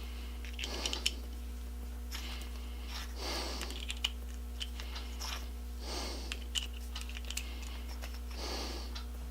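A person breathing audibly through the nose, one breath about every two and a half seconds, with small light clicks and ticks of handling in between, over a steady low electrical hum.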